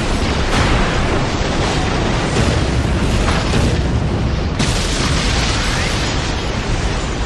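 Animated explosion sound effects: one continuous, loud blast with a deep rumble, a fresh blast breaking in about four and a half seconds in.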